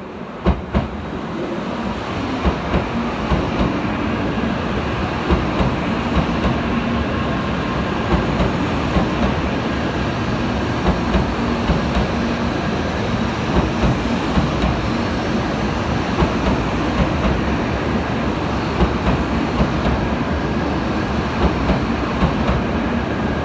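N700A Shinkansen bullet train arriving at the platform, the cars rolling past close by with a steady rumble. A sharp wheel click sounds about once or twice a second as the wheelsets run over the rail joints.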